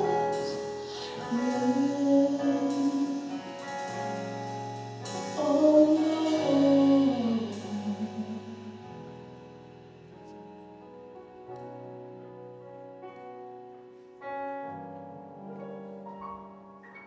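Worship music: sustained keyboard chords with a loud, wavering held melody line in the first half, then softer keyboard chords.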